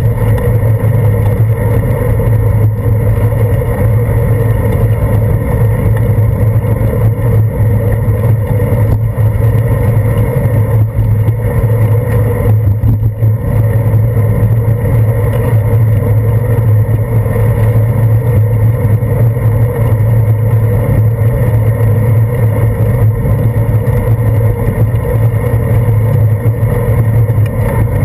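Steady, loud rumble and hum of wind and road vibration picked up by a GoPro Hero 2 in its waterproof housing on a bicycle's handlebars while riding on wet pavement.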